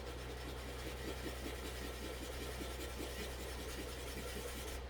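Hand-sanding a wooden dowel rod on 220-grit sandpaper laid flat: a continuous scratchy rubbing made of many quick back-and-forth strokes, over a steady low hum.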